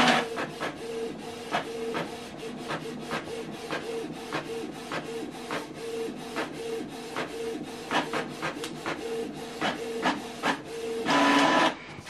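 Canon Pixma MG2551S inkjet printer printing a test page: the print head shuttles back and forth with a pulsing whine and about three clicks a second as the paper advances. Near the end comes a louder whirr lasting about a second as the page feeds out.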